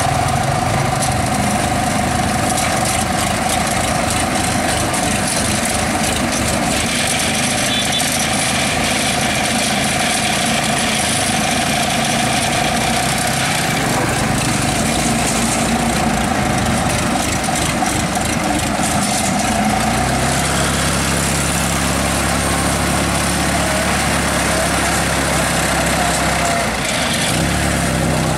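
Engine of a small tracked crawler carrier running steadily. About 20 seconds in its note deepens, and near the end the engine speeds up.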